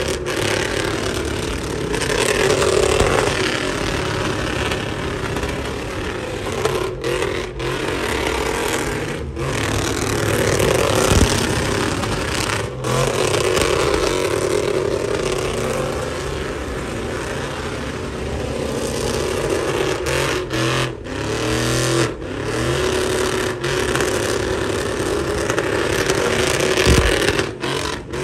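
Chevrolet Silverado pickup doing burnout doughnuts: its engine is held at high revs with the rear tyres spinning on the pavement. The sound breaks off briefly several times.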